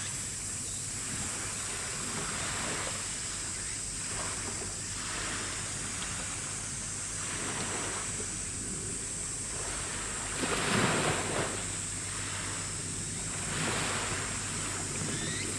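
Sea waves washing and splashing in a regular rhythm, a surge every two to three seconds with the biggest about two thirds of the way through, over wind on the microphone and a steady low hum.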